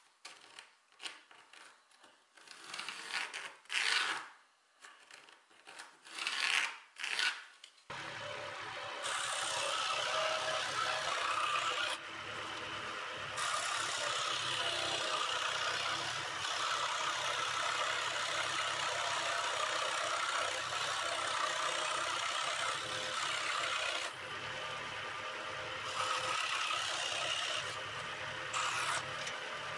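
A pencil scratching over wood in a few short strokes as a cutting line is traced. About eight seconds in an electric scroll saw starts and runs steadily, its reciprocating blade cutting a thin wood strip along the line.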